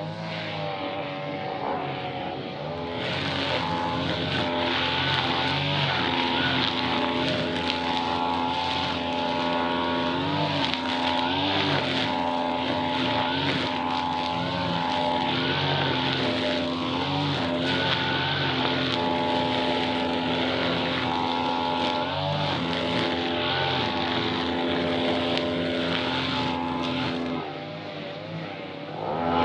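Small two-stroke grass-cutter engine running at high revs, its pitch dipping and rising every second or two. It eases off briefly near the end, then picks up again.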